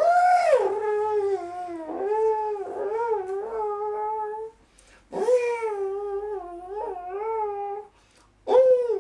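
Harmonica played in wailing blues phrases with bent, sliding notes: a long phrase, a short break about halfway, a second long phrase, then a brief note near the end.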